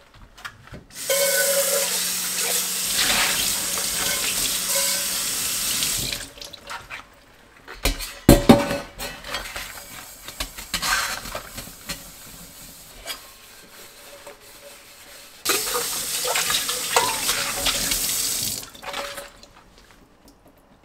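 Kitchen tap running into a stainless steel sink while a stainless pot is rinsed, in two stretches. Between them a sharp metal knock comes about eight seconds in, then quieter scrubbing of the stainless pot with a soap-filled steel wool pad.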